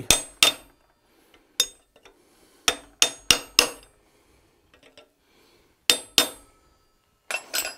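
Hammer striking a hand-held chisel-edged tool to cut a mouth line into the hot steel of a forged ram's head clamped in a vise block. About ten sharp metal strikes with a brief ringing, in small groups with pauses between.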